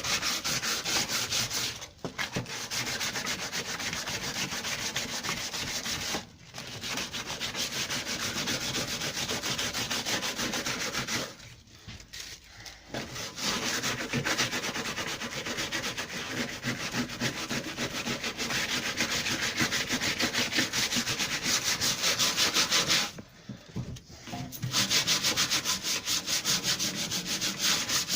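Sandpaper scratching over hardened metal filler on a lawnmower deck, sanding it smooth in steady runs, with brief pauses about 2 and 6 seconds in, a longer one around the middle and another near the end.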